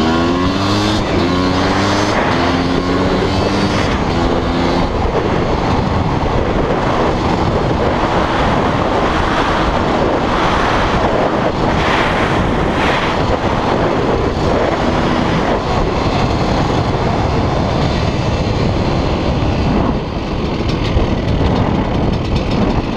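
KTM dirt bike engine accelerating, its pitch climbing in several steps over the first few seconds, then mostly buried under loud wind rushing over the microphone as the bike runs along at speed.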